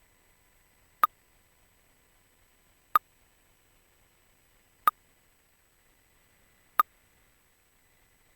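A single short percussive click sound from a drum machine sequence, struck four times at an even spacing of about two seconds, once per bar of the pattern.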